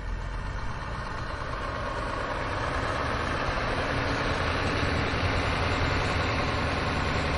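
Heavy diesel engine of earthmoving machinery running steadily, growing gradually louder over the first few seconds and then holding.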